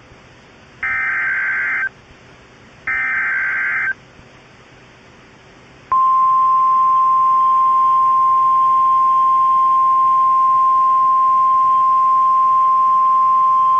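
Emergency alert SAME header data bursts: two harsh, buzzy one-second bursts about a second apart. About two seconds later the steady 1050 Hz NOAA Weather Radio warning alarm tone starts and holds, the signal that a warning is about to be read.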